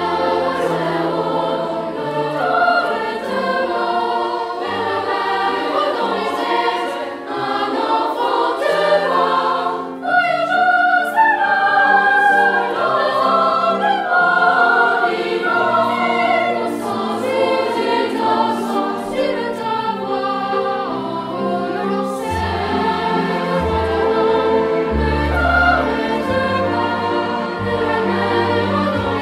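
Choral music: a choir singing over sustained low accompanying notes.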